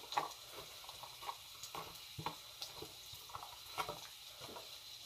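Chopped onions being scraped with a plastic spatula from a plastic container into hot canola oil in a cast-iron pan. It comes as a string of faint, irregular soft clicks and pops, about two a second.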